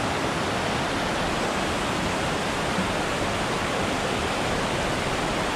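Steady rush of a small mountain stream running over rocks and little cascades.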